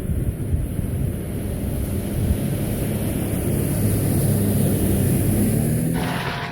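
A Jeep's engine running as it is driven slowly, a low rumble with a steadier engine tone that comes up about two seconds in and eases off near the end.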